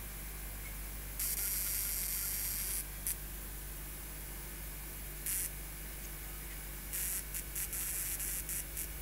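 Spark gap made from two halves of a relay, fed about 600 volts from a camera-flash circuit, arcing in hissing, crackling bursts. One long burst comes about a second in, short ones follow midway, and a quick run of short bursts comes near the end.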